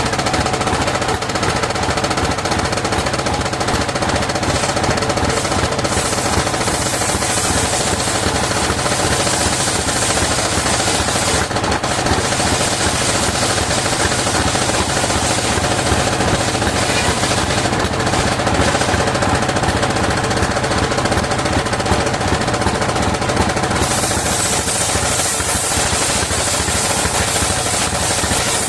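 Engine of a sawmill circular saw running steadily with a fast, even chugging beat; the engine is starting to lose power.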